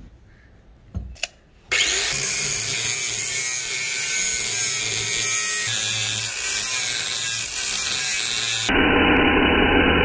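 Angle grinder with a cut-off disc cutting into a steel round bar, starting about two seconds in after a couple of clicks and running steadily; near the end the sound turns abruptly duller.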